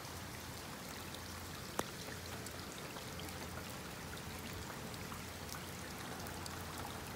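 Steady rain falling on standing floodwater: an even hiss with scattered drop patter. A single sharp click comes a little under two seconds in.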